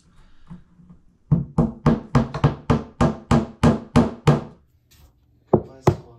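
Claw hammer tapping wooden dowel pegs into an Ikea Kallax shelf panel: a quick run of about a dozen taps at about four a second, then, after a short pause, two more taps near the end.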